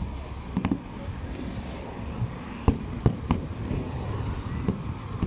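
Aerial fireworks shells bursting at a distance: a handful of sharp bangs, three in quick succession near the middle, over a continuous low rumble.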